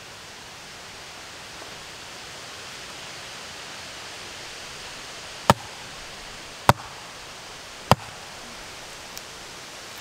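Hatchet striking into a small log three times, about a second apart, then a fainter knock near the end: splitting damp wood to get at its dry core. A steady hiss runs underneath.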